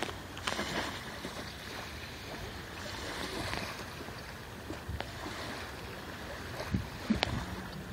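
Small waves lapping and washing up on a sandy lake shore, a steady rush of water. A few sharp clicks and low thumps come through, the loudest about seven seconds in.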